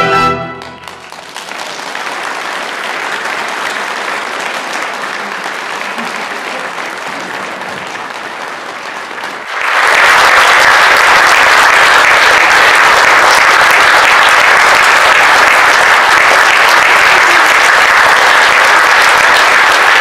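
The final chord of a yangqin concerto with chamber orchestra breaks off in the first second, and audience applause follows. The applause becomes suddenly much louder and fuller about halfway through.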